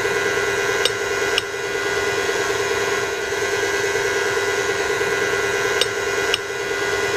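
Electric stand mixer running steadily, its flat beater turning a thin mix of milk, egg and flour in a stainless steel bowl, a steady hum. Two pairs of short clicks come about a second in and near the end.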